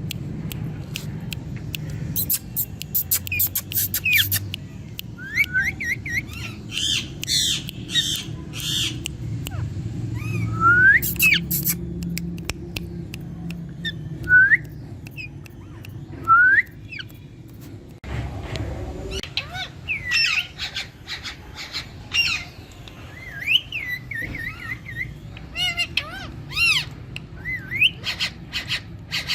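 Pet green parrots calling to each other: short squawks and rising, whistled chirps, scattered through with sharp clicks, over a low steady background rumble.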